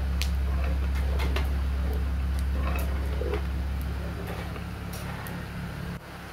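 A steady low hum with scattered short clicks and clinks; the hum fades from about four seconds in and drops off sharply near the end.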